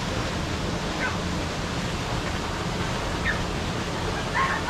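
Steady rushing background noise, with faint short chirps about a second in and just past three seconds, and a voice briefly near the end.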